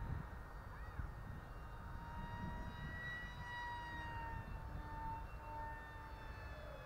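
HobbyKing PrimeJet Pro electric RC model jet flying fast on a 4S battery. Its motor gives a high-pitched scream with a row of overtones that drifts slowly up and down in pitch as the plane passes. Wind rumbles on the microphone underneath.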